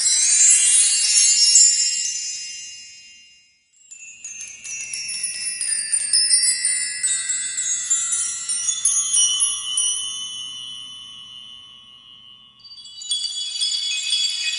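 Twinkling chime sound effects: three runs of many high, bell-like tones. The first sweeps up and fades, the second slides slowly downward over several seconds, and the third starts near the end and cuts off abruptly.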